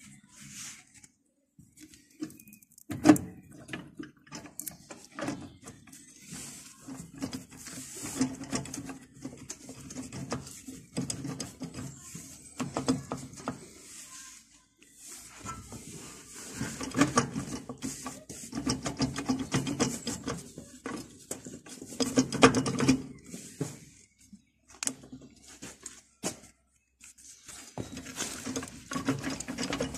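Metal gearbox parts of a two-wheel tractor clicking, knocking and rubbing as they are handled and fitted by hand into the transmission. The clicks and scrapes are irregular, with a sharp knock about three seconds in and another around twenty-two seconds.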